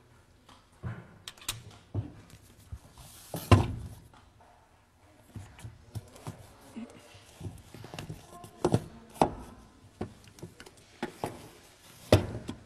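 Scattered thumps and knocks with rustling between them, from people moving about a small bedroom and handling pillows and bedding. The loudest thump comes about three and a half seconds in, with more about nine seconds in and near the end.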